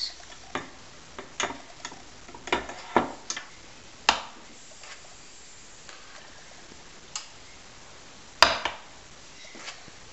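Metal spoon clinking and scraping against a mixing bowl and a metal mini-muffin tin while brownie batter is spooned into the cups: scattered sharp clicks, most of them in the first four seconds, the loudest about eight seconds in.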